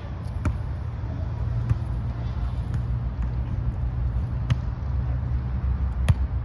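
A volleyball being struck by players' hands and forearms: about five sharp, short smacks a second or more apart, over a steady low rumble.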